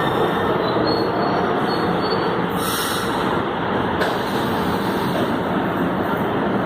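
Metro train running along the track through a station: a steady rumble of wheels on rail, with a faint high wheel squeal about a second in.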